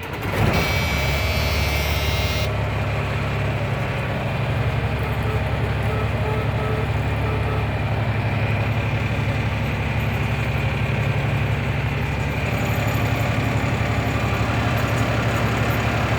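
Caterpillar diesel engine in a Freightliner dump truck, just started, picking up and settling into a steady idle. A hiss rides over it for the first couple of seconds, then stops abruptly.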